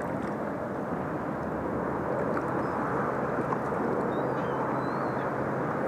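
Steady outdoor rushing noise, with a few faint chirps about four seconds in.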